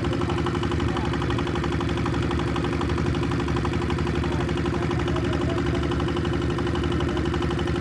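An engine running steadily at an even speed, with a fast, regular pulse and a constant hum; faint voices sound in the background.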